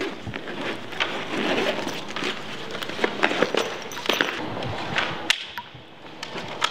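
Handling noise from photographic gear: rustling and scraping with scattered sharp clicks and knocks, busiest in the first four seconds and quieter toward the end.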